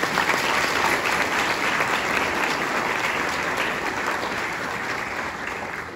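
Audience applauding: a dense, steady clapping that starts at once and dies away near the end.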